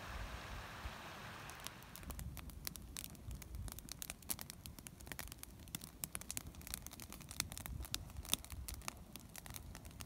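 Campfire of logs crackling, with many irregular sharp pops and snaps from about two seconds in. It follows a soft, steady rushing noise at the start.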